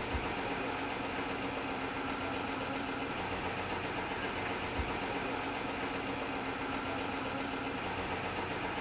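Engine idling steadily, with a couple of brief low thumps.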